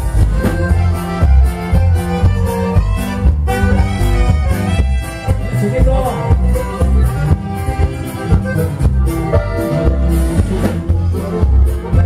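Live norteño band playing through a PA, with alto saxophone, strummed bajo sexto, electric bass and drums over a steady bass-heavy beat.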